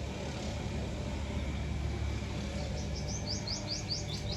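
A bird calling in a fast run of short rising chirps, about seven a second, starting past the middle, over a steady low hum.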